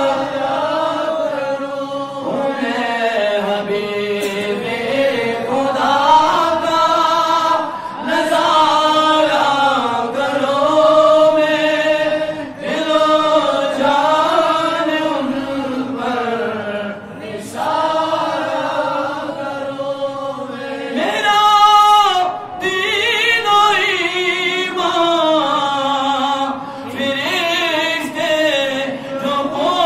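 A man singing an Urdu naat unaccompanied into a microphone, in long, wavering held notes with short breaths between phrases.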